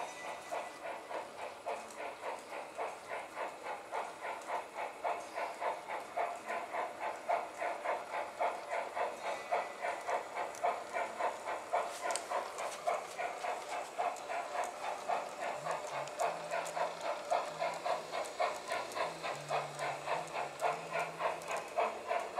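Märklin Gauge 1 class 78 steam locomotive model running with a steady, even steam chuff, about three chuffs a second.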